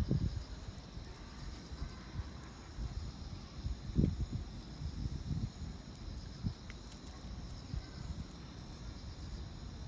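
Crickets chirping: very high chirps repeating about twice a second over a steady insect trill. A few low bumps, the loudest about four seconds in.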